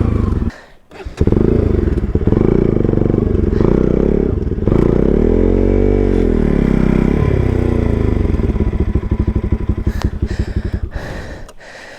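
Motorcycle engine revving under load as the bike bogs down in soft river sand. The engine drops out briefly just under a second in, then the revs rise and fall around the middle and settle into a slow, uneven chugging that fades near the end.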